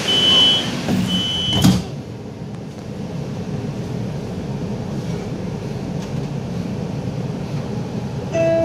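LRT train door-closing warning beeping twice in a high steady tone, then the sliding doors shutting with a thud about two seconds in. A steady hum follows, and a descending chime begins at the very end.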